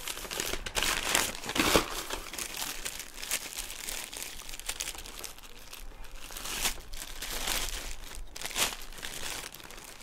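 Clear plastic bag and brown packing paper crinkling and rustling as a slip-on exhaust silencer is handled and pulled out of its wrapping: an irregular crackle throughout, loudest about a second and a half in.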